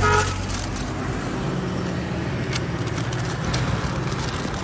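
Steady low engine hum of an idling motor vehicle, with a few light crinkles of a paper wrapper being folded.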